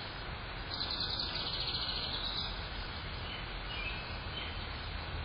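Steady outdoor background noise with birds calling in the distance: a fast trill from about one to two and a half seconds in, then a few faint chirps.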